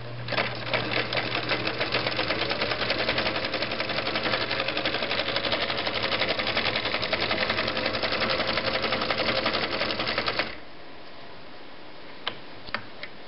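Viking (Husqvarna) Type 21 sewing machine running at speed, sewing a fine zigzag stitch: a fast, even clatter of needle and feed for about ten seconds, then it stops abruptly. A few light clicks follow near the end.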